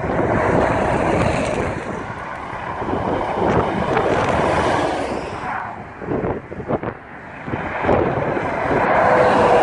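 Heavy lorries passing close by one after another: engine and tyre noise swells as each goes past and fades between them, three passes in all, with wind buffeting the microphone.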